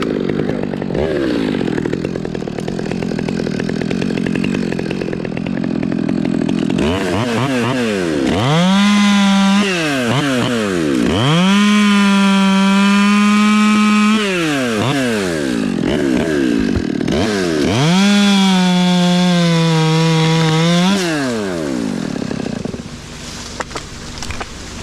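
Chainsaw cutting cottonwood. The engine runs rough at first, then is throttled up to a high, steady scream three times, each time held for one to three seconds with the pitch sagging slightly under load, before dropping back. It dies away near the end.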